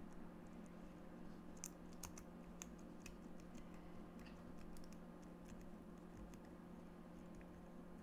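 Faint, scattered light clicks of a lock pick raking the pin tumblers of a small DOM cam lock.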